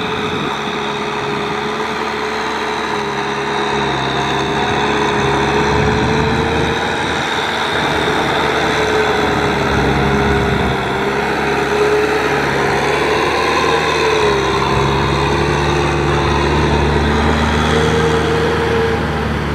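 Kubota M6040SU tractor's diesel engine running steadily under load as it pulls a rear rotary tiller through paddy mud, with a whine that wavers slightly in pitch.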